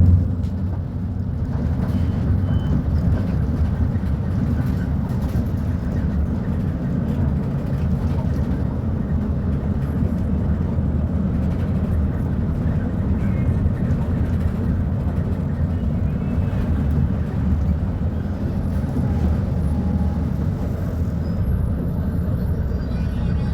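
Diesel engine of a Volvo B290RLE city bus running steadily, a low rumble that holds an even level.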